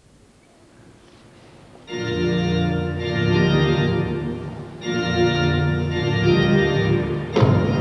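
Organ music: after a faint first two seconds, the organ comes in with full sustained chords, and a new chord enters sharply near the end.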